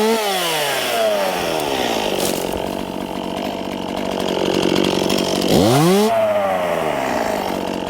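Chainsaw limbing branches off a dead spruce. The engine drops from full revs into a cut and runs under load for several seconds. About five and a half seconds in it revs up sharply, then falls off again.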